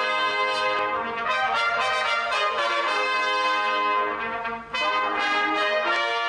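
A section of trumpets playing held notes in harmony, with a short break between phrases about three-quarters of the way through.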